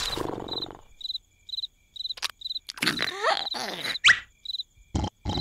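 Crickets chirping in a steady rhythm, about two chirps a second, as a night-time background, with a few short clicks and rustles and brief sliding squeaks in between.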